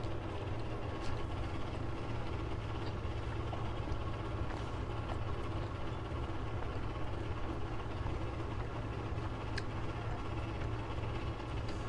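A person chewing a mouthful of steamed dumpling with her mouth closed, with a few faint mouth clicks, over a steady low hum of room noise.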